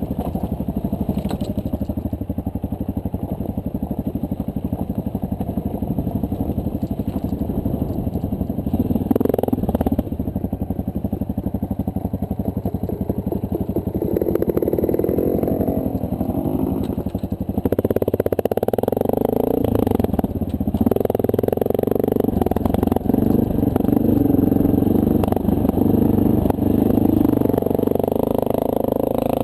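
2009 Honda CRF230L's single-cylinder four-stroke engine running steadily as the dual-sport motorcycle rides a rough dirt trail. It gets louder after about halfway through as the throttle opens.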